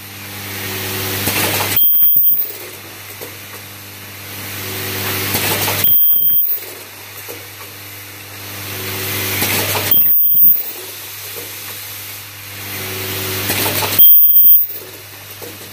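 Automatic plastic-parts assembly welding machine running in cycles: a steady hum from its feeders underneath, and about every four seconds a hiss that builds up and ends in a short loud burst with a high thin tone, four times.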